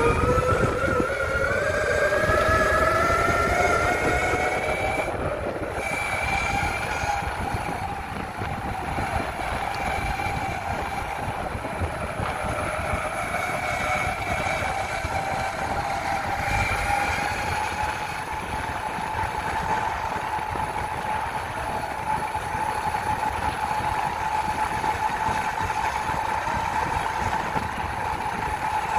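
Electric mountainboard's motors whining as it speeds up, the pitch rising over the first five seconds or so, then holding a steady whine at speed. Under it runs a continuous rumble from the wheels rolling over the ground.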